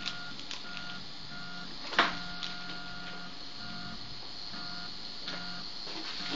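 RepRap 3D printer's stepper motors whining as the print head makes short moves, the steady tone stopping and starting roughly every half second. One sharp click about two seconds in.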